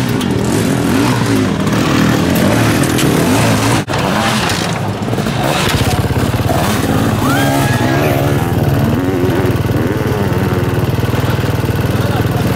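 Sidecar motocross outfits' engines revving up and down over the jumps, several machines at once, their pitch rising and falling in waves. The sound drops out for an instant about four seconds in.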